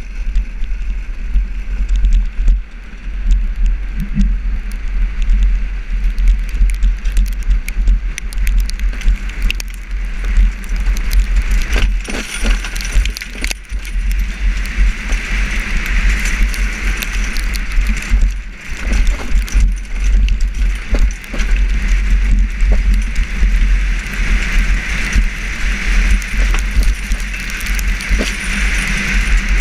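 Wind buffeting the microphone and knobby tyres rumbling and crackling over a gravel dirt road as an engineless gravity kart rolls along at speed, with small rattles and stone clicks throughout. The rushing hiss swells about halfway through and again near the end.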